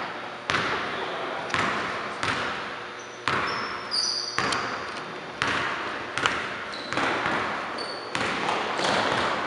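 Basketball being dribbled on a hardwood gym floor, about one bounce a second, each bounce echoing around the hall. A few short sneaker squeaks on the court come in the middle and near the end.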